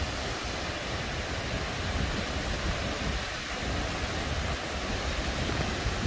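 Steady rush of a fast river running over rocks, with uneven low wind rumble on the microphone.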